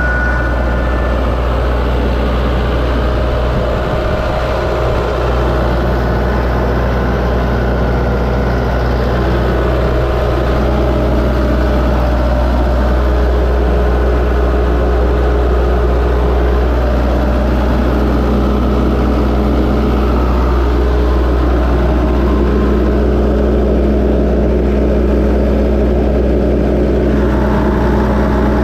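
Diesel engine of an Atlas Copco XAS186DD portable air compressor running steadily at idle, heard up close with the canopy open.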